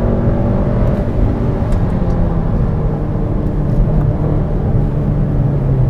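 The Cupra Ateca's 2.0 TSI turbocharged engine, heard from inside the cabin as the car slows down, its note falling steadily and settling low near the end.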